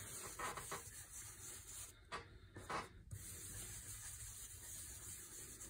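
Ink blending brush rubbing in circles over a stencil on paper, pushing Distress ink through it, a soft scratchy brushing with a few light taps.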